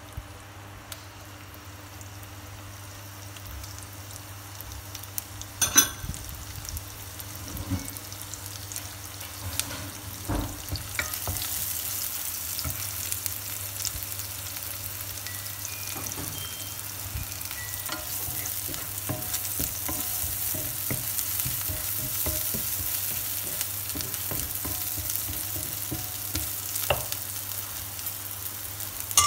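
Chopped shallots sizzling in hot fat in a nonstick frying pan, being fried until fragrant and stirred with a wooden spatula. There is a sharp knock about six seconds in, and the sizzle gets louder from about eleven seconds in.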